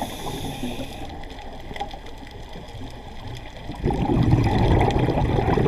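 Scuba diver breathing through a regulator underwater. A quieter stretch gives way, about two-thirds of the way in, to a loud bubbling rush of exhaled air.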